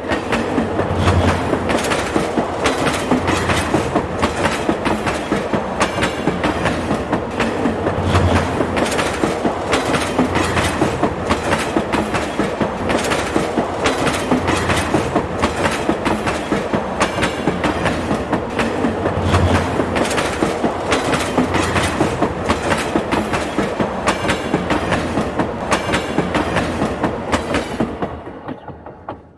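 Train running along the track, its wheels clicking over the rail joints in a fast, steady clickety-clack, with a deeper thump every couple of seconds. The sound fades away near the end.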